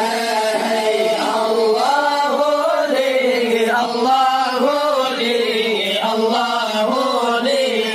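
Acehnese dike Maulid: a group of men chanting Islamic devotional verses in praise of the Prophet together, a steady held tone under a melody that rises and falls.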